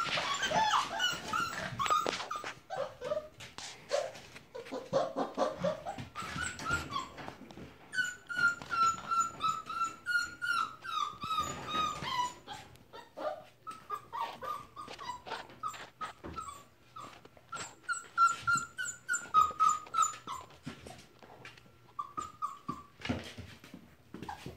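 Young puppies whining and squealing in many short, high cries that come in quick runs, with clicks and scuffs in between.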